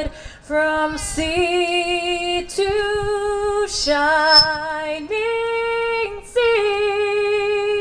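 A woman singing solo and unaccompanied into a handheld microphone, holding long notes with a slight vibrato, with short breaks between phrases; the last note ends right at the end.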